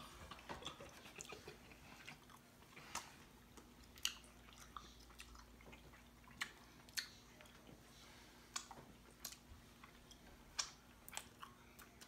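Chewing of sugar-coated sour candy straws: quiet mouth sounds with irregular sharp clicks and smacks.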